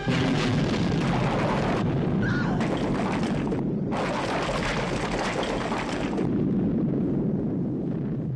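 Film sound effect of a large explosion: a sudden blast that cuts off the music, followed by several seconds of continuous roaring noise, broken by a couple of brief cuts, that dies away near the end.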